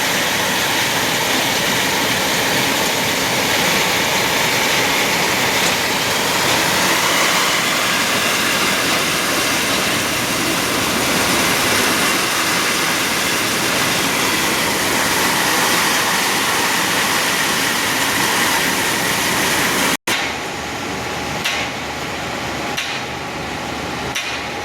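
Heavy construction machinery engine running steadily with a dense clatter. About 20 seconds in it cuts off abruptly, giving way to a quieter stretch with a few sharp knocks.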